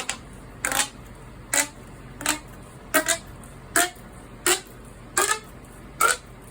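Plastic pop tube fidget toy being stretched and squashed, giving a short, loud buzzy toot with each pull or push, about eight in a row at an even pace.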